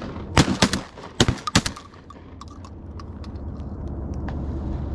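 A rapid volley of shotgun fire as several duck hunters shoot together, about six or seven shots in under two seconds near the start. Faint scattered clicks follow.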